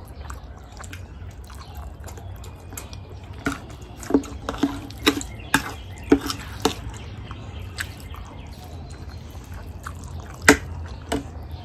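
Noodle-eating sounds: wet slurps and mouth smacks as black bean noodles are sucked in and chewed, with short clicks of forks against plates. A run of quick smacks comes in the middle, and one sharp click about ten seconds in.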